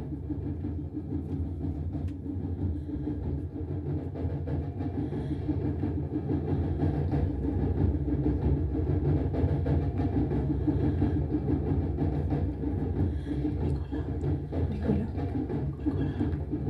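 A steady low rumbling drone, dense and continuous, growing a little louder partway through.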